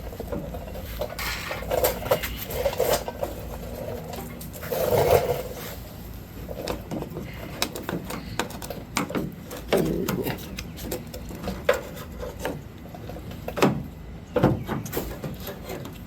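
Irregular small clicks, knocks and rubbing of plastic parts and wiring being pushed around and fitted back together by hand, as the turn signal's wiring is worked into a tight space to close the light back up.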